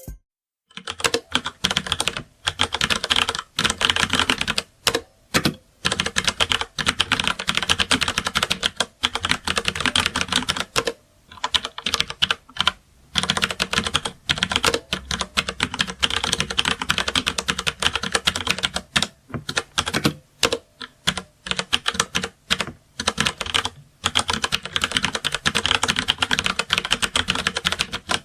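Fast typing on a computer keyboard: a dense run of key clicks, broken by short pauses every second or two.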